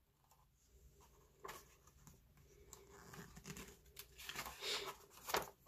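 Faint rustling and scraping of a book's paper pages being handled and turned by hand, in a string of short, soft sounds starting about a second and a half in.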